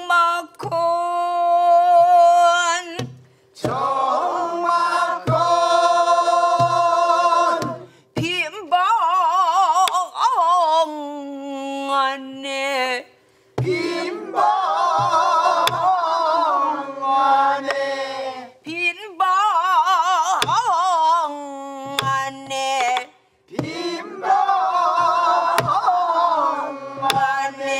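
Korean namdo folk song sung by a class in unison, in long phrases with a strongly wavering pitch and short breaks between them. A buk barrel drum beats the rhythm with spaced strokes.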